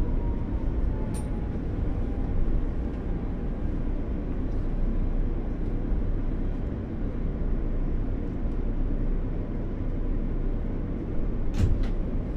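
Steady low rumble of a New York City Q subway train running, heard from inside the car. A faint whine falls in pitch over the first couple of seconds, and a few sharp clicks come about a second in and twice near the end.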